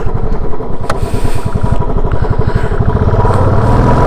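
Royal Enfield Standard 350's single-cylinder engine running under way, heard as a rapid, even pulsing beat, with the engine hum growing stronger about three seconds in.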